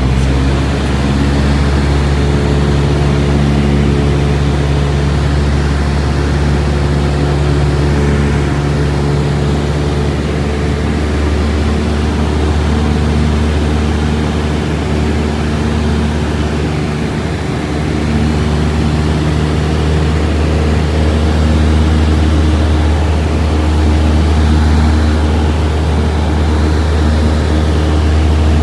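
Light single-engine propeller airplane in cruise, heard from inside the cabin: a steady, loud engine and propeller drone with a strong low hum.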